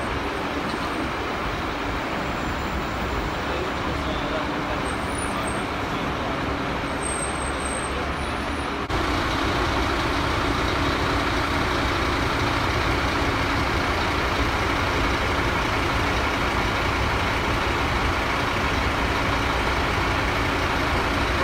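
Steady city street traffic noise, then about a third of the way in a cut to a steady low hum of a parked fire engine's diesel engine idling close by.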